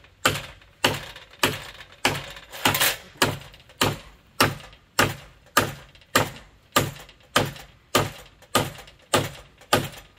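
Hammer blows driving nails into a wooden framing piece, struck at a steady pace of nearly two blows a second.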